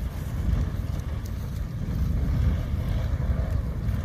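Wind buffeting the microphone in a steady, gusty low rumble.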